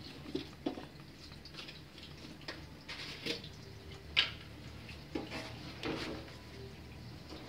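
Large stainless-steel pot of water boiling on a gas stove, bubbling with scattered light ticks, and a sharper click about four seconds in.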